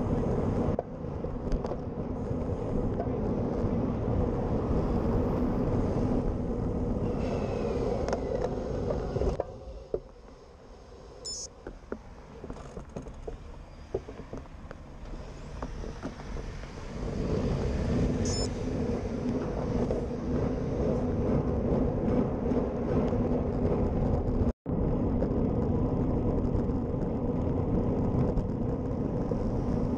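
Wind rush on a handlebar-mounted action camera mixed with tyre and road rumble from a road bike riding along a main road. It is steady and loud, eases to a much quieter stretch in the middle as the bike slows in traffic, then builds back up, and cuts out for an instant about two-thirds of the way through.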